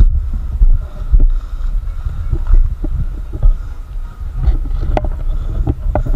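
Wind rumbling on the microphone of a body-worn camera carried at speed over open ground, with uneven thumps from the wearer's steps and gear, and a few sharp clicks in the second half.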